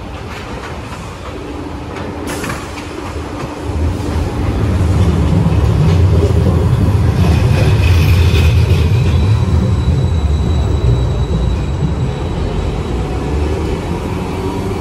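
A low-floor articulated streetcar runs past close by on street-running rails. Its deep rumble builds about four seconds in and eases after about ten seconds, with a brief high wheel squeal around the eight-second mark. A sharp click sounds about two seconds in.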